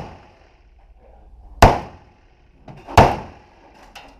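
Two single gunshots, about a second and a half apart, from a firearm fired on semi-automatic. Each is a sharp crack with a short echoing tail, and the tail of a third shot dies away at the start.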